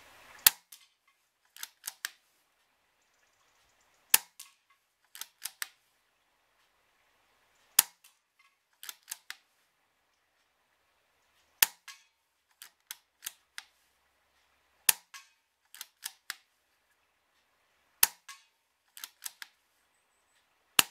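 Weihrauch HW110 pre-charged pneumatic air rifle fired seven times, about one shot every three to four seconds. Each sharp shot is followed a second or so later by two or three quieter clicks as the cocking lever is worked back and forward to load the next pellet from the magazine.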